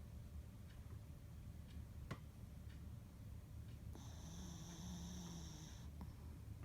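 A chihuahua snoring: one long snore with a steady high whistle, starting about four seconds in and lasting about two seconds. A single sharp tick about two seconds in.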